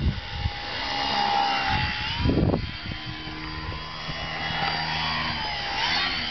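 An RC plane's 200-watt electric motor and propeller whining. The pitch rises about two seconds in as it is throttled up, with a short low rush just after. Near the end the pitch wavers as the plane flies off close by.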